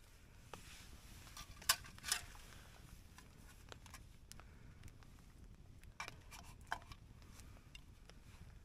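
Campfire wood crackling: faint, irregular ticks with a few sharper pops, the loudest about two seconds in and another pair around six seconds in.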